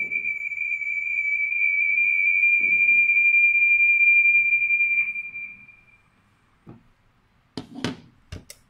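A steady, high-pitched electronic tone that swells and then fades out about five seconds in, followed by a few sharp clicks near the end.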